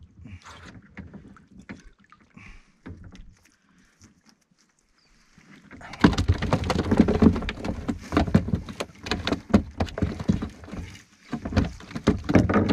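Wet monofilament gill net being handled and hauled over the side of a small fiberglass boat: light rustling and ticking at first, then from about six seconds in a dense run of knocks and clatter as the net and its line come in against the hull.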